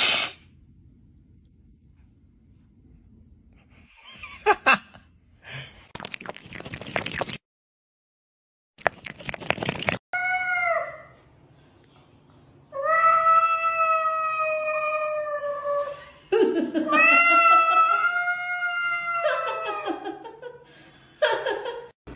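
A cat yowling: a short call about ten seconds in, then two long drawn-out yowls of about three seconds each, steady in pitch, and a few shorter ones near the end. Before the yowls there are only a few brief, faint noises.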